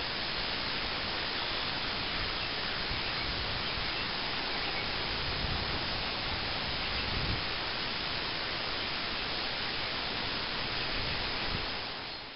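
Steady, even hiss of recording noise with no other distinct sound, fading out near the end.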